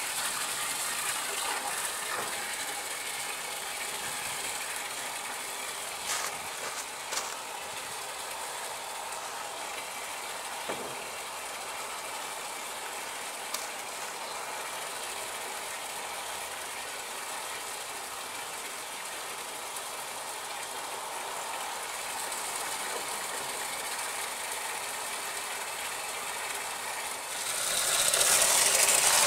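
Water from a garden hose running steadily into a bin of water, with a few handling clicks. Near the end a British Seagull single-cylinder two-stroke outboard motor starts up after 40 years unused, and its running is much louder than the water.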